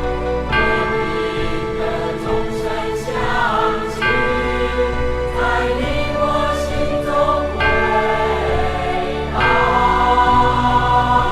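Choral music: a choir singing slow, held phrases over a steady low accompaniment.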